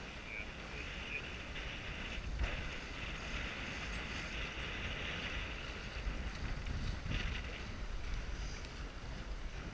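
Wind buffeting the microphone and water rushing past the hull of a Lightning sailboat under sail, with a couple of brief thumps.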